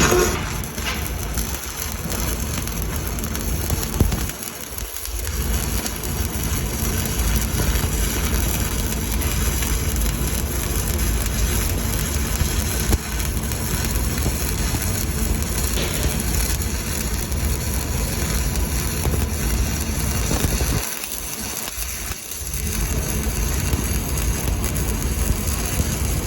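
Welding arc crackling and sizzling steadily, with two short breaks in the arc about four and a half seconds in and again about twenty-one seconds in.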